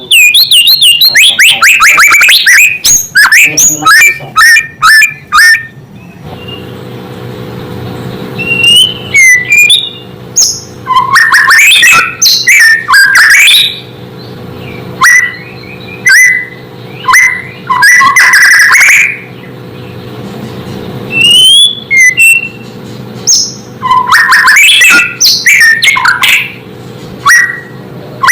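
White-rumped shama singing loud, rapid phrases of gliding whistles and chattering notes in bursts separated by short pauses. From about six seconds in, a steady low hum runs underneath.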